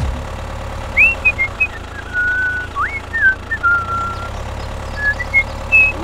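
Someone whistling a short tune of separate sliding notes, some gliding up and some held, over a steady low engine-like hum.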